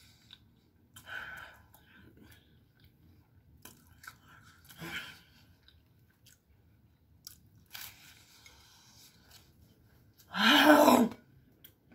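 A person chewing a flaky Jamaican beef patty, with soft crunches and mouth sounds now and then. About ten and a half seconds in there is one loud, strained vocal cry, a reaction to the pepper heat of the patty.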